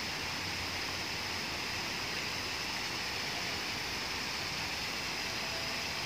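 Waterfall: a steady, even rush of water falling down a rock face.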